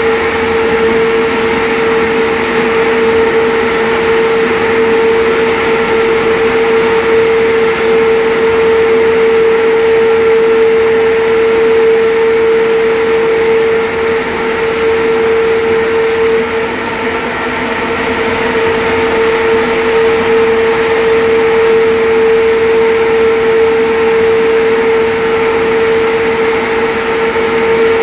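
Loud, steady machinery hum with one strong constant tone above a hiss.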